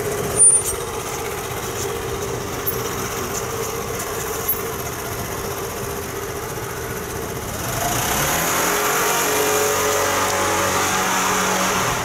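SYM Wolf 125 motorcycle's single-cylinder engine running steadily on the stand, getting louder and lower-pitched about eight seconds in. A short knock about half a second in.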